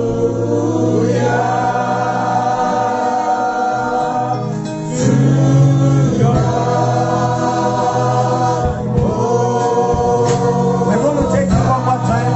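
Church congregation singing a gospel praise song together in long held notes, with breaks between phrases about five and nine seconds in.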